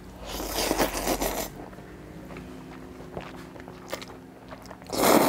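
Slurping a big mouthful of spicy sauced noodles, with chewing and small mouth clicks between; a first long slurp about a second in and a second, louder one near the end.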